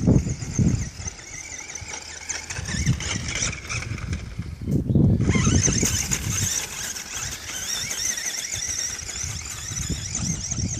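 Radio-controlled monster truck's electric motor and gears whining at a high pitch, the whine wavering up and down with the throttle. Low rumbles come near the start and about halfway through.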